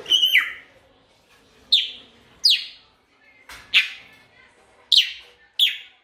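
African grey parrot giving about six short, sharp whistle-calls, each falling quickly in pitch, spaced roughly a second apart.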